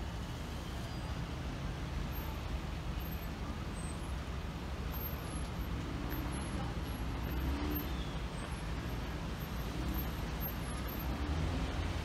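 Street traffic: the engines of cars and a van moving slowly in a line make a steady low rumble, with no horn standing out.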